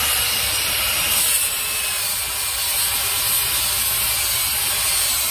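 Low-voltage (42 V) angle grinder with a non-woven mop disc grinding a stainless steel plate: a steady abrasive grinding noise over a faint, high motor whine that sags slightly in pitch as the disc bears on the metal.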